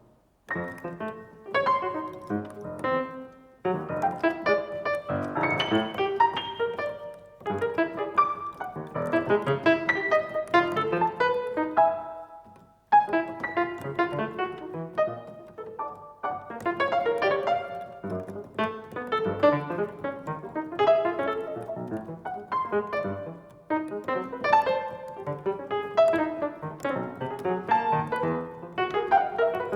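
Piano playing dense, fast flurries of notes across the keyboard, in phrases broken by a few brief pauses.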